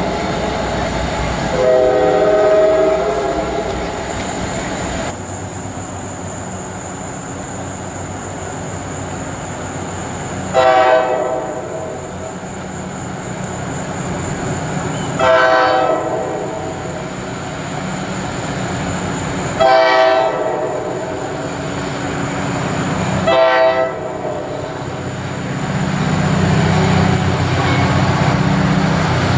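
Locomotive horn: one blast about two seconds in, then four separate blasts of about a second each, spaced some four seconds apart. A train's low rumble grows louder near the end.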